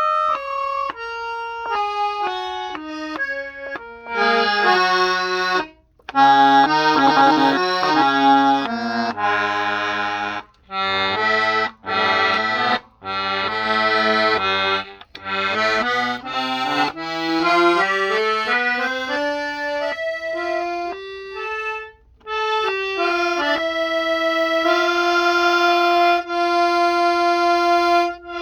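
Hohner Tango II piano accordion's treble reeds, played key by key: single notes step down the keyboard, then several keys sound together in short bursts with brief gaps, then the notes climb step by step back up and one note is held steady near the end. Every key sounds, with the register switch set to 3.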